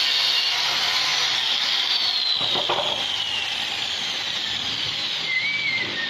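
Woodworking power tool running with a steady high hiss, its tone sliding down in pitch about two seconds in.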